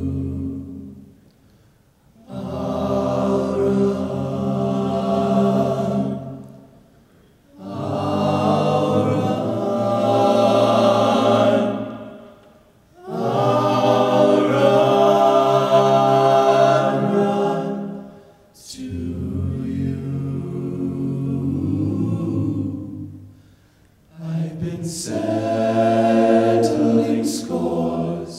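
Men's a cappella vocal ensemble singing held chords in several voices through handheld microphones, in phrases of about four to five seconds with short pauses between them.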